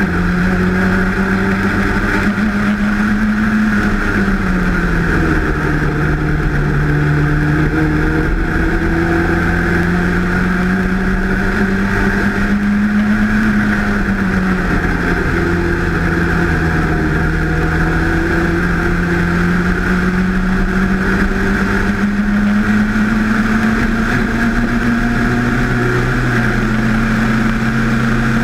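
Race car engine at full throttle, high in the rev range, heard from an open cockpit. The pitch climbs steadily and drops sharply on two upshifts, about four seconds in and again near the middle, over a steady rush of wind.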